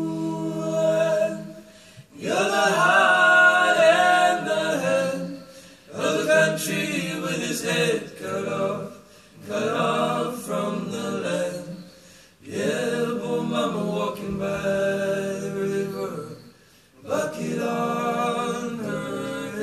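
Male vocal group singing a cappella, several voices in harmony, in phrases of a few seconds broken by short pauses.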